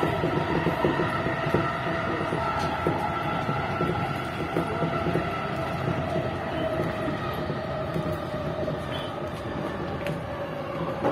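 JR East E233 series electric train running on the rails, heard from inside behind the driver's cab. A steady electric motor whine slowly falls in pitch as the train brakes into a station, over running noise with scattered light clicks from the wheels.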